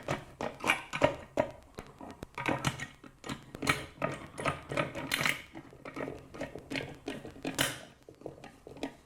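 Phillips screwdriver driving screws to fix a plastic jug handle onto steel bands: a run of irregular small clicks and scrapes as the screws are tightened.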